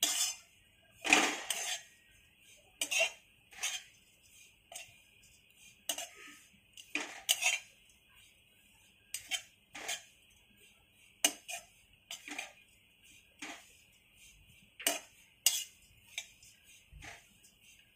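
A spatula stirring and scraping dried coconut as it dry-roasts in a kadhai, in irregular strokes about once a second, over a faint steady hiss.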